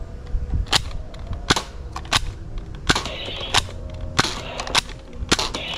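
A toy foam-dart blaster being fired repeatedly. Eight sharp snaps come about two-thirds of a second apart as it is primed and shot at the targets.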